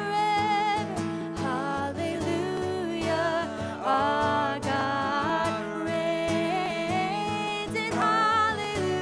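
Live worship song: singing voices over a strummed acoustic guitar.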